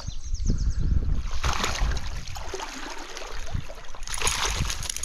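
Stream water running and splashing, in two louder spells, with a low rumble of noise on the microphone over about the first second and a half.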